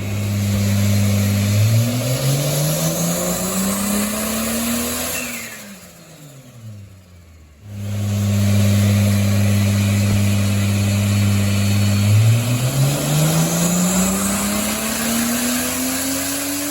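Turbocharged Toyota 2JZ-GE VVTi straight-six making two full-throttle pulls on a Dynapack hub dyno. Each time the engine is held at a steady speed for a couple of seconds, then revs climb in a smooth rising sweep. After the first pull it lifts off, falling away to a brief lull; the second climb is slower and still rising at the end.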